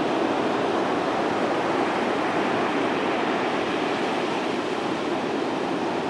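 Heavy ocean surf: large waves breaking and white water rushing ashore in a steady, unbroken wash of noise.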